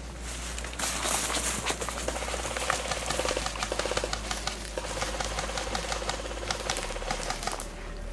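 Airsoft guns firing in rapid, machine-like bursts, with scattered sharp clicks and snaps around them.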